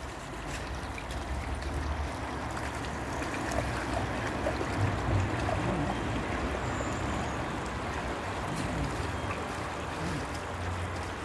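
Shallow stream running steadily over stones, with a dog wading through the water.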